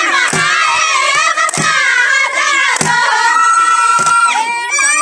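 Group of women singing a Somali baraanbur song, with sharp claps keeping a slow steady beat, about one every 1.2 seconds.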